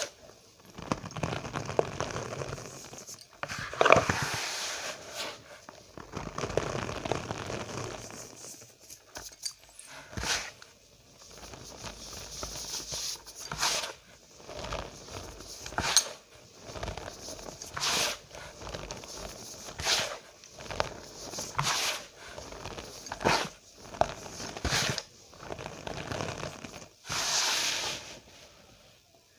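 Cornstarch powder squeezed and pressed by hand, giving squeaky crunches. The first few seconds hold longer crunching, and after that come separate squeezes about every one to two seconds.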